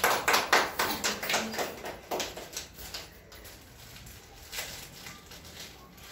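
A small group clapping their hands. The applause fades out about two and a half seconds in.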